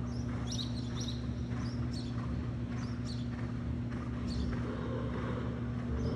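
Horse cantering on sand arena footing: light, even beats about twice a second over a steady low hum.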